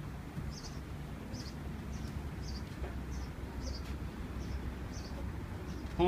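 Water buffalo being hand-milked: short high squirts of milk from the teat, a little over one a second, in an even rhythm, over a steady low background hum.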